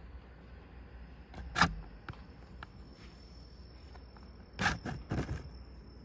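A few short scuffling knocks, one about a second and a half in and two close together near the end, as a Cranwell's horned frog lunges at and seizes its food in a clear container.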